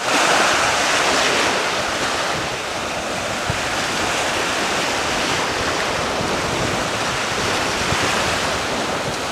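Small sea waves washing steadily onto the beach, mixed with wind buffeting the microphone.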